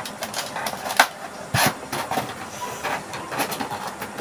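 Small cardboard boxes being handled, slid and stacked, knocking and scraping against each other and the carton, with the sharpest knocks about a second in and again a little later.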